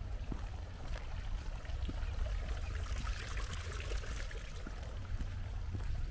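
Water of a stone garden fountain trickling and splashing steadily, strongest about halfway through and thinning toward the end.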